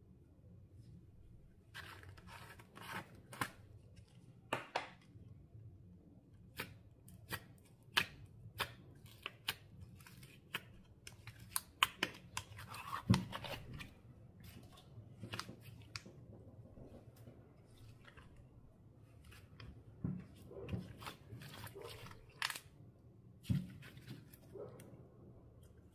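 Clear slime being squeezed and folded by hand, giving many irregular sticky clicks and pops, a few louder ones in the middle and near the end.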